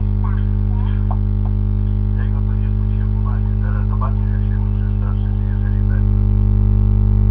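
Loud steady electrical mains hum, growing a little louder near the end, with faint voices under it.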